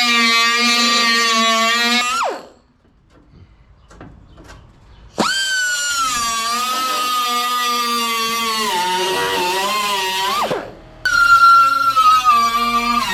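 A handheld power cutting tool whining as it cuts through rusted sheet steel. It stops and winds down about two seconds in, spins back up with a rising whine about five seconds in, sags in pitch under load, winds down again near eleven seconds and restarts straight away.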